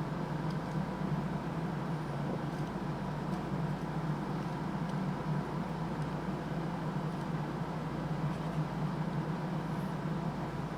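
Steady low hum and hiss of background room noise, unchanging throughout, with a few faint ticks of small plastic parts being handled.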